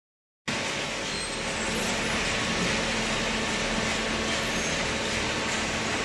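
Hydraulic waste-paper baling machine running, a steady mechanical noise with a low hum that starts abruptly about half a second in.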